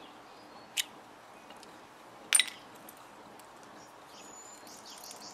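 Two sharp metallic clinks from a dog collar's buckle and hardware as the old collar comes off, about a second and a half apart, the second louder and ringing briefly.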